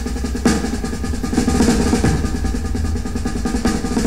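Background music of rapid, dense drumming over a steady low bass.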